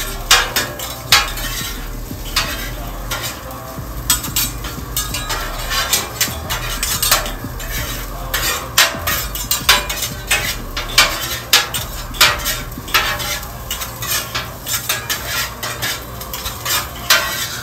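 Metal spatula and fork clicking and scraping irregularly on a Blackstone flat-top griddle, over the sizzle of onions and garlic frying in oil.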